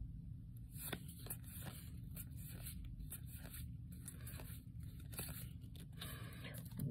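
Faint, irregular rustling and scraping of Yu-Gi-Oh trading cards sliding over one another as a hand flips through a stack, with a few light clicks.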